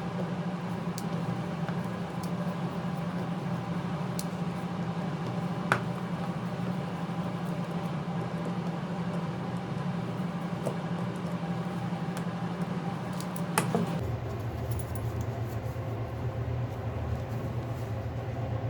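A steady low background hum with a few sharp little clicks, typical of small tools or parts handled on a phone during disassembly. Two clicks stand out, one about six seconds in and a louder one shortly before the hum abruptly drops lower in pitch.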